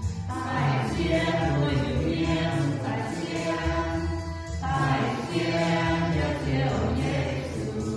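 A small mixed group of men's and women's voices singing a Mien-language hymn over keyboard accompaniment, in long held phrases with a short break about halfway through.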